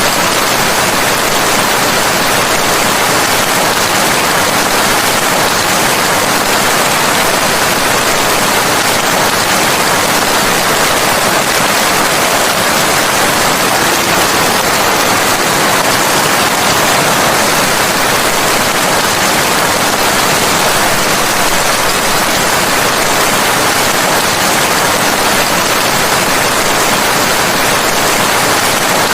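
Steady rain falling, an even, unbroken hiss with no separate drops or pauses standing out.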